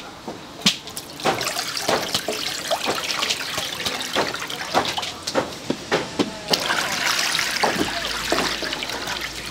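Food-stall kitchen work: a steady watery hiss with many irregular clatters and knocks of utensils.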